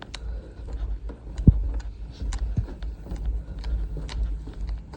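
Low rumble with scattered light clicks and knocks, and one louder thump about a second and a half in.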